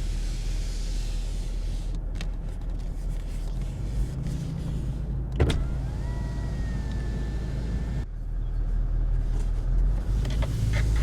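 Lexus LX450d power window motor: a click, then a steady whine for about two and a half seconds before it stops, over a constant low hum. A few light clicks follow near the end.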